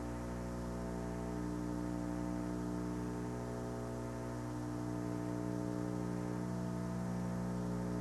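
A steady low hum with many even overtones, unchanging throughout, like a running machine or electrical hum.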